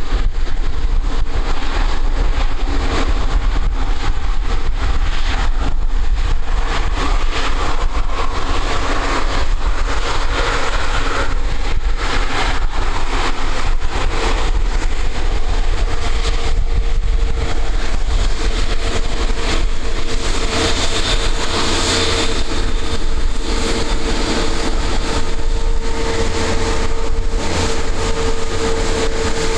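Airbus A350-1041's Rolls-Royce Trent XWB jet engines running, a steady whine that grows louder through the second half, over a constant heavy low rumble.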